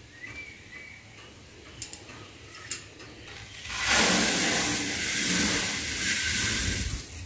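Dry grain poured from a metal bowl into a wooden stool, a loud steady hiss of pouring that begins about halfway through and runs for roughly three and a half seconds. Before it, only a few faint clicks.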